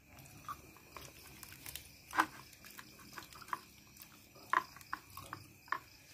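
Quiet eating sounds at a meal taken by hand: scattered small clicks and taps as grilled fish is picked apart on a plate, a couple of them sharper. A steady high insect chirring runs behind.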